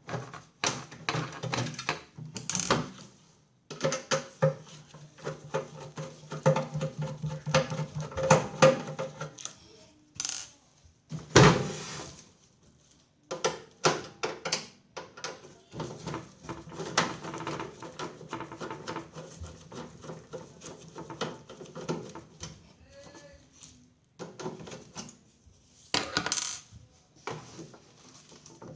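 Clinking and knocking of small metal parts and tools being handled: many short sharp clicks and rattles, with brief pauses.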